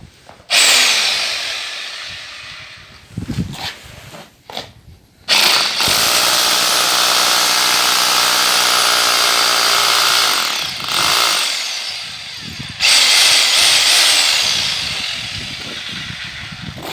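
A Parkside PBH 1500 E5 1500 W hammer drill runs in three bursts. A short one starts about half a second in and winds down. A longer, steady run lasts from about five seconds to ten seconds. A third starts near thirteen seconds and slowly winds down. A few short knocks fall between the first two bursts.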